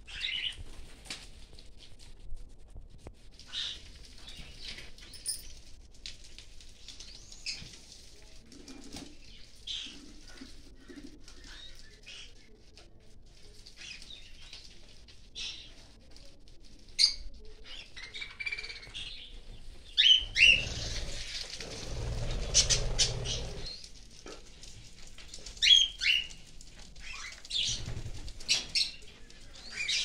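Budgerigars chirping: many short, scattered high chirps, with a few seconds of rustling a little past the two-thirds mark.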